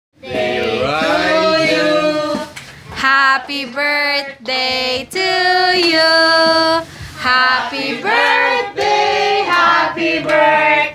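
A group of children singing together, with a woman's voice among them, in sung phrases with some long held notes and short breaks between them.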